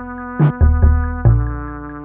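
Background electronic music with a drum-machine beat: a quick regular hi-hat tick, deep kick drum hits and sustained synthesizer chords.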